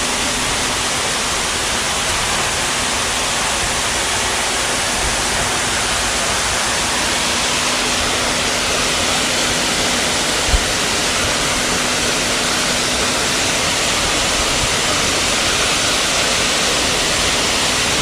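Steady rushing of a small creek waterfall close by, with one brief low thump about ten seconds in.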